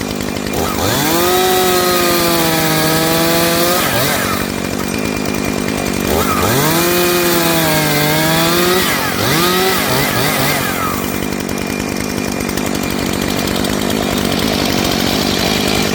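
Two-stroke chainsaw revved up and held at full throttle twice, with a few quick blips of the throttle after the second rev, then running more steadily. The saw runs fine after being thrown off a moving truck.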